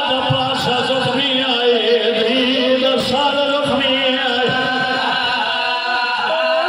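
Men chanting a Shia Muharram lament (nauha) into a microphone, amplified, with a lead voice carrying a continuous melodic line.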